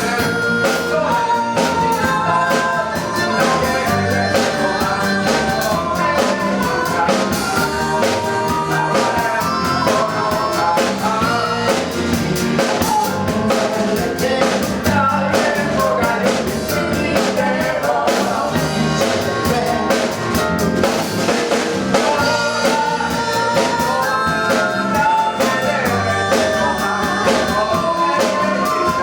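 Large live band playing a song: singing over drum kit and guitar, with steady full-band music throughout.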